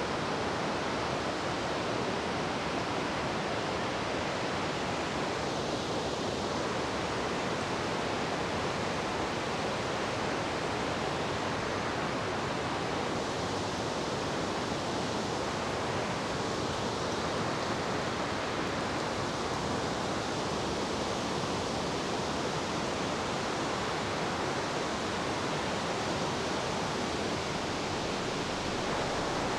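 A creek's water rushing steadily, an even hiss without breaks.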